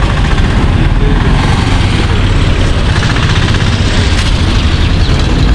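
Loud, steady low rumble of a moving road vehicle, engine and road noise together, with no distinct events.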